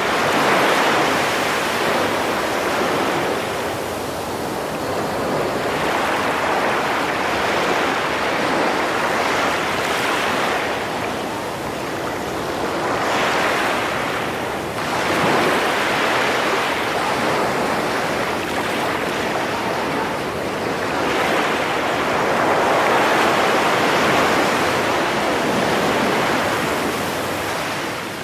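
Ocean surf: a steady wash of breaking waves that swells and eases every few seconds.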